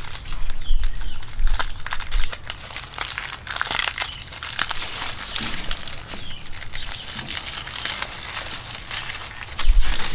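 Foam pipe insulation tube being handled and pressed along an air-conditioning copper line set, rustling and scraping in irregular strokes. A low rumble starts near the end.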